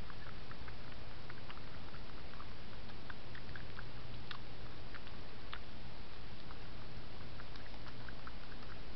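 A hedgehog eating: faint, irregular little clicks of chewing and smacking, several a second at times, over a steady hiss.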